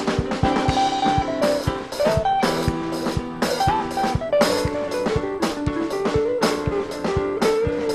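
Live gospel band playing an instrumental passage: a steady drum-kit beat under held chords and a melody line that steps up and down in pitch.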